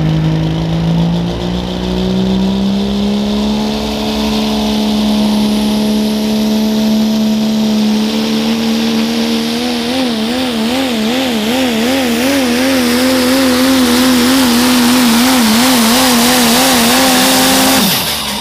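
Turbocharged Pro Stock diesel pulling truck under full throttle, hauling the sled. The engine note climbs over the first few seconds, then holds high with a rising hiss. In the second half the pitch wavers about twice a second, and near the end the engine note falls away sharply.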